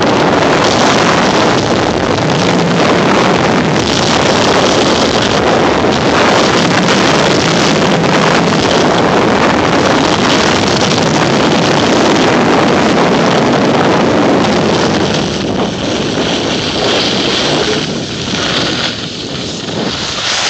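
Wind buffeting the microphone and skis hissing and scraping over packed snow during a fast downhill ski run. The rush eases and turns patchier over the last few seconds as the skier slows.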